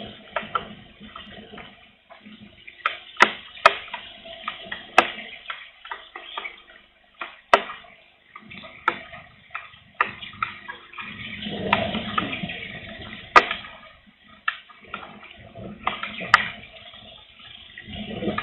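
Raindrops tapping irregularly as sharp ticks, a few of them much louder, over gusts of strong wind rumbling on the microphone that swell most about two thirds of the way through.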